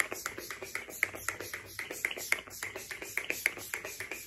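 Maybelline Lasting Fix makeup setting spray being pumped onto the face, many quick spritzes in a row at about four a second.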